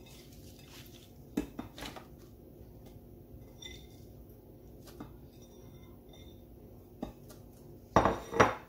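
A few light taps as green chillies drop into a plastic mini-chopper bowl. About eight seconds in comes a louder clatter and rustle of plastic as the chopper parts are handled.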